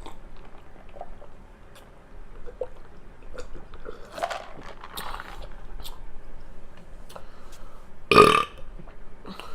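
A woman eating soup dumplings, with small wet mouth clicks and smacks, then one loud, short burp about eight seconds in.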